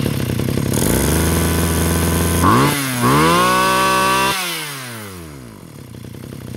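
Small grass-cutter engine running just after an electric start from a 4-cell battery pack. It runs steadily, is revved up sharply about two and a half seconds in and held high, then the throttle is released and the revs fall back to idle.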